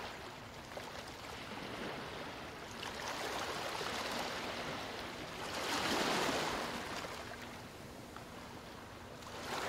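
Ocean waves washing and surging, a rushing noise that swells to its loudest about six seconds in and then eases off.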